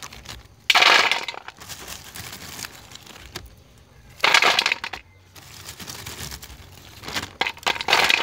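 Handfuls of sun-dried milkwood (hoa sữa) bark pieces being scooped up and dropped, a crisp dry rattling clatter three times, about three seconds apart, with faint crackling between. The dry rattle is the sound the maker gives for bark dried enough to be used.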